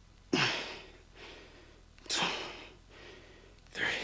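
A man breathing hard through a set of kettlebell shoulder shrugs: three sharp, forceful exhales about a second and a half apart, with quieter breaths between them.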